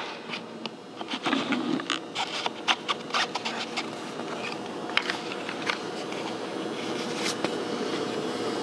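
Light clicks and scrapes of hard plastic and metal parts being handled as a sprocket is fitted onto a steel mast of a kayak pedal drive, coming thick at first and thinning out after about five seconds.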